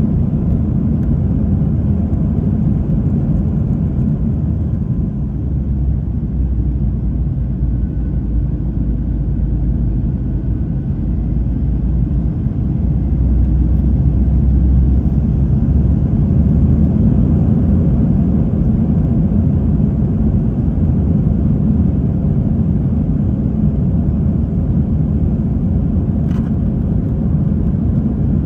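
Steady low rumble of an Airbus A321's engines and airflow heard from inside the passenger cabin in flight, growing a little louder about halfway through. A faint click near the end.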